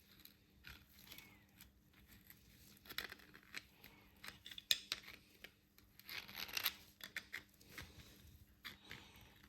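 Faint scattered clicks, scrapes and rustles of hand work on a brake caliper as the rubber dust boot is pressed into its groove on the cylinder.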